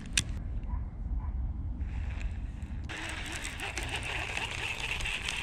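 Wind rumbling on the action camera's microphone, with a single sharp click just after the start. From about three seconds in, a steady high hiss with fine crackling ticks joins it.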